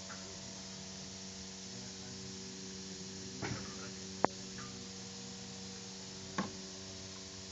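Steady machine hum holding several even tones, with a few short clicks and knocks, the sharpest just past the middle.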